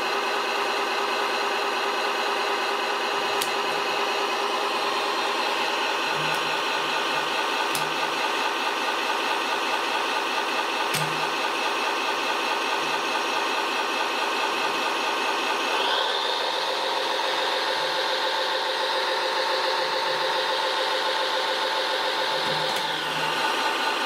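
Radio-controlled mobile crane winching up an overturned model concrete mixer truck: a steady mechanical hum of several tones at once, shifting in pitch about two-thirds of the way through and settling again near the end, with a few faint clicks.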